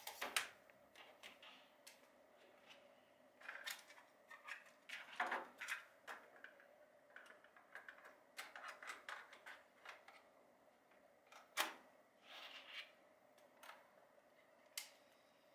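Plastic clicks and clunks of a Retekess TR606 portable cassette player being handled: its buttons pressed and its cassette door opened and shut as a tape is put in. The sharpest clicks come near the start and again about two-thirds through.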